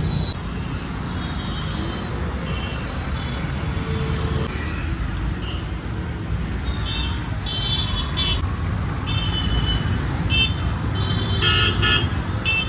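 Busy roadside traffic: a steady low rumble of passing vehicles, with short, high-pitched toots coming again and again, more of them near the end.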